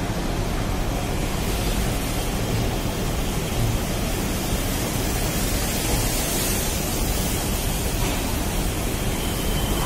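Steady rushing noise of Duronto Express passenger coaches rolling slowly out along the platform, without distinct wheel clacks.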